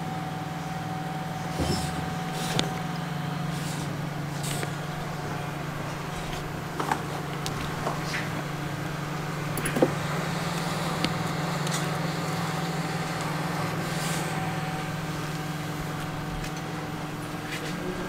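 Steady hum of running repair-bench equipment with a faint held whine, broken by a few light clicks and taps of small tools, the sharpest about ten seconds in.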